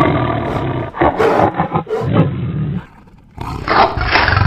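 A tiger roaring twice: one long roar, a short pause about three seconds in, then a second, shorter roar.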